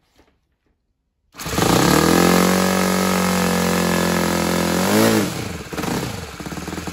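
Saito 100 single-cylinder four-stroke glow (nitro) model aircraft engine starting abruptly about a second in and running fast and steady, its valve timing freshly reset. About five seconds in its pitch rises and falls briefly, then it drops to a lower, rougher running speed.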